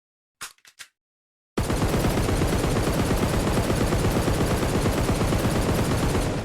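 Automatic gunfire sound effect: three short clicks, then, about a second and a half in, one long burst of rapid fire lasting about five seconds that fades out at the end.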